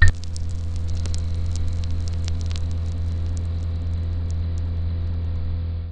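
Neon sign switching on with a sharp crack, then a steady low electrical hum with scattered crackles that thin out after a few seconds. The hum cuts off suddenly at the end.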